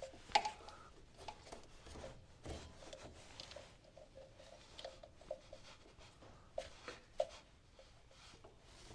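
Faint rubbing and light clicking of a rubber drive belt being worked by hand around the mower's idler pulleys, with a few sharper ticks where the belt or fingers knock against the metal.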